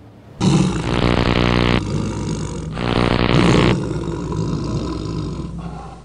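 Big cat's roar, a tiger sound effect, starting suddenly about half a second in: two loud roars followed by a quieter growling tail that fades out at the end.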